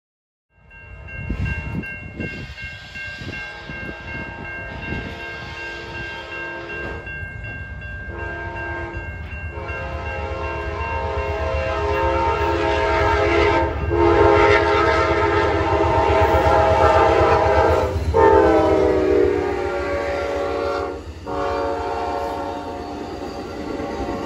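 Amtrak passenger train approaching and passing, its locomotive horn sounding a chord of several notes in a series of long blasts over a growing low rumble. The horn grows louder, and its pitch drops about three-quarters of the way through as the locomotive goes by.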